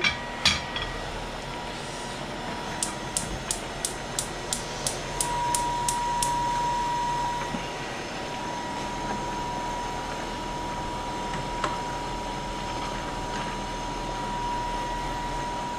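Pot of spaghetti boiling on a gas stove, a steady bubbling hiss. About three seconds in, a gas hob's spark igniter clicks about a dozen times, roughly three a second, while a burner is lit.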